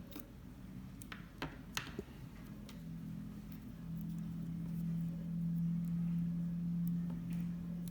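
A few light clicks and taps from handling small plastic parts and tape in the first two seconds, then a steady low hum that swells and holds through the second half.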